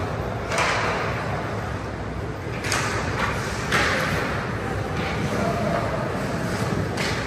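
Ice hockey play in an echoing rink: a few sharp knocks of puck and sticks against the boards and ice, spread over several seconds, over a steady background of the arena with voices.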